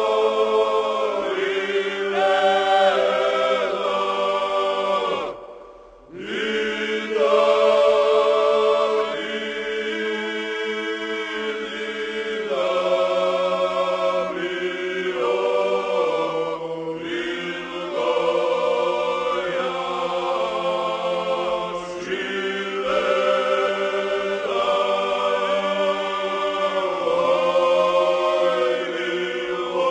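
Choir singing in several parts, held chords shifting from phrase to phrase over a steady low held note, with a short break between phrases about six seconds in.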